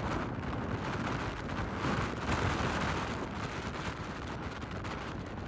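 Storm-force wind buffeting the microphone in a steady low rumble, over rough sea surging and breaking against a stone harbour wall.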